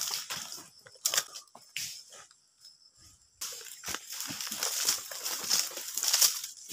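Dry rustling and crunching in oil palm frond litter, as from footsteps and movement through dead fronds: a few separate crunches at first, then a denser, louder stretch of rustling from about three and a half seconds in.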